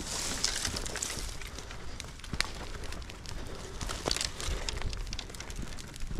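Dry brush and branches crackling and snapping irregularly, with scattered sharp clicks and a few soft knocks.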